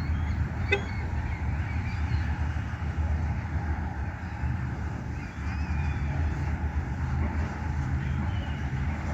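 An engine's low steady drone, with short bird calls chirping above it now and then and a single click about a second in.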